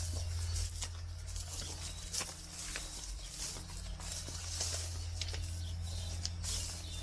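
Footsteps on trackside ballast and through long grass, with rustling, roughly one step every second, over a steady low hum.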